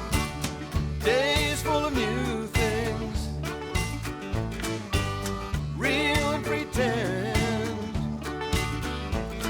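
Upbeat music with a steady beat and bass, and a wavering melody line that comes in twice.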